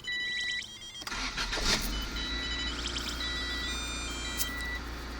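A 1994 Honda Civic's four-cylinder engine cranks and starts about a second in, then settles into a steady idle. The car's electronic warning chime beeps on and off throughout.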